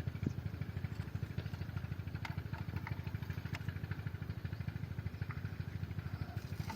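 Petter diesel engine running steadily at a tube well, with an even, rapid low beat and a few faint clicks over it.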